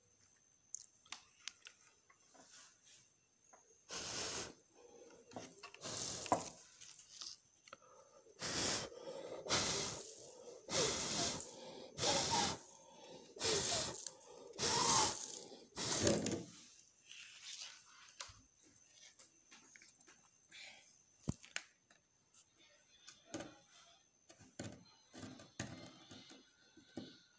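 A person blowing short, hard puffs of breath to clear loose salt from around eggs standing on salt piles: about nine puffs over roughly twelve seconds, rushing across the microphone at close range, followed by faint small clicks and rustles.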